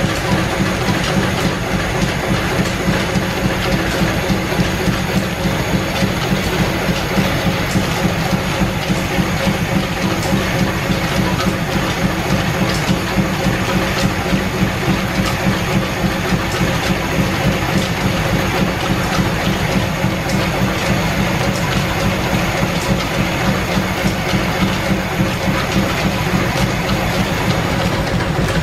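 Belt-driven 1925 American 18-inch engine lathe running and taking a cut on metal bar stock, with its flat belts and line shaft making a steady rhythmic clatter.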